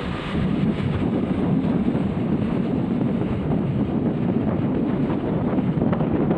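Steady road and engine noise of vehicles travelling at speed, with wind buffeting the microphone.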